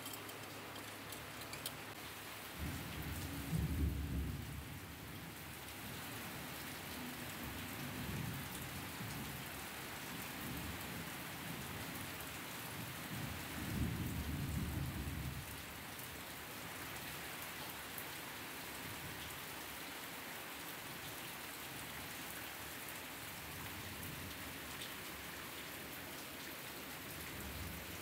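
Steady rain hiss, with two low rumbles a couple of seconds long, about 3 and 13 seconds in.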